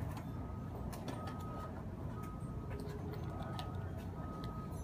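A single-pitched beep repeating about once a second, each beep about half a second long, over a steady low rumble, with scattered light clicks.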